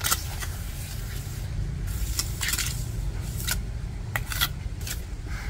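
Mason's trowel scraping mortar on bricks: several short, irregular scrapes over a steady low rumble.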